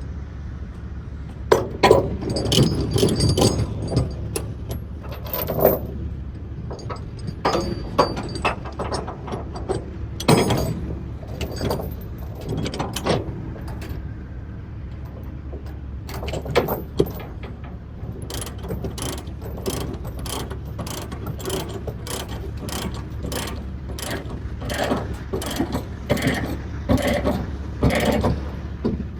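Load-securement ratchet being cranked to tighten a tie-down, its pawl clicking in runs of rapid strokes with pauses between, over a steady low hum.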